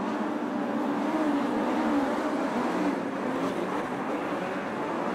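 Several open-wheel dirt-track race cars' engines running hard together, their overlapping pitches rising and falling as the pack races through a turn.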